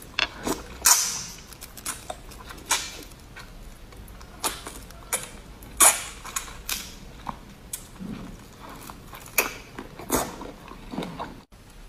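Close-up mouth sounds of eating marinated shrimp: irregular sharp wet clicks, sucks and smacks as the shrimp is sucked and bitten from its shell, about a dozen spread through the stretch.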